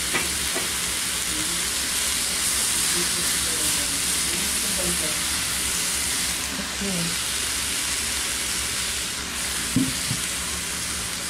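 Vegetables sizzling and steaming in a hot stainless-steel Saladmaster electric skillet, cooked with no oil: a steady hiss. A spatula stirs through them partway, and two light knocks come near the end.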